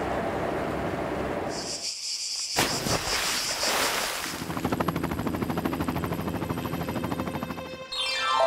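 Motorboat engine running with water rushing and splashing in its wake, settling in the second half into a rapid, even thrum. A short high buzz sounds before an abrupt cut, and music starts near the end.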